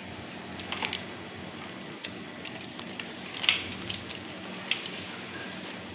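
Hand-eating sounds: fingers working rice and fried food in a cardboard takeaway box, and chewing, heard as a few short crunches and clicks, the loudest about three and a half seconds in, over a steady background hiss.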